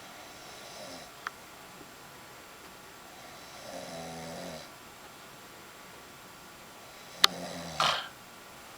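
A sleeping person snoring: a faint breath, then one short pitched snore about halfway through. Near the end a sharp click comes just before a louder, rougher snore.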